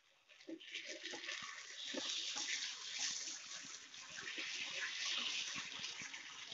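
Paneer, capsicum and onion masala sizzling faintly in a kadai as a spatula stirs it, with light scrapes and clicks of the spatula against the pan. The gravy has cooked down almost dry, so it fries with a hiss rather than bubbling.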